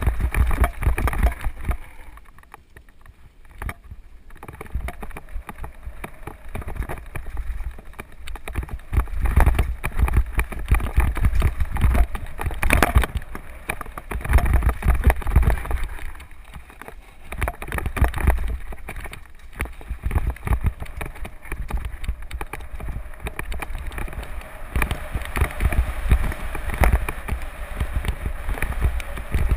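Mountain bike descending a rough dirt and gravel trail at speed: a heavy rumble of wind on the microphone over tyre noise and the constant clatter and rattle of the bike over loose ground. It goes quieter for a couple of seconds about two seconds in, then picks up again.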